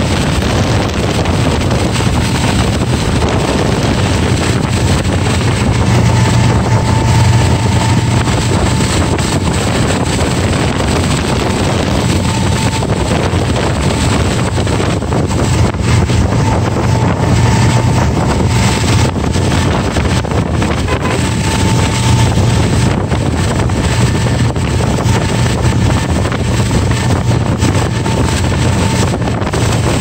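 Inboard ski boat's engine running steadily at towing speed, a low drone, heard from aboard the boat with wind buffeting the microphone.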